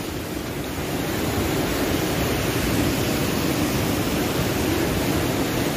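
White-water rapids of a mountain river rushing steadily, an even wash of water noise with no breaks.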